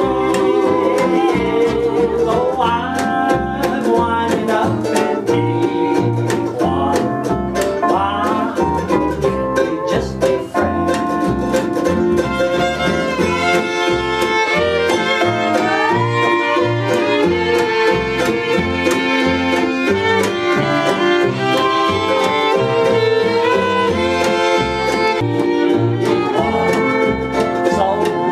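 Acoustic string band playing a bluegrass-style instrumental passage, fiddle with banjo and guitar.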